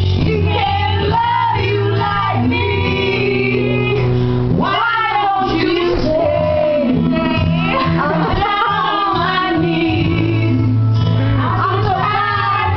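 Two women singing a song together over music with a steady bass line.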